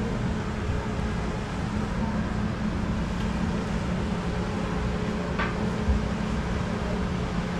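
Steady low mechanical hum under a constant background hiss, with a brief rising high chirp a little past the middle.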